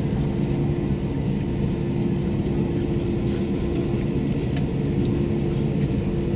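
Airbus A321-231 airliner heard from inside the cabin on the ground, its IAE V2500 jet engines running at low power: a steady rumble with a droning hum through it.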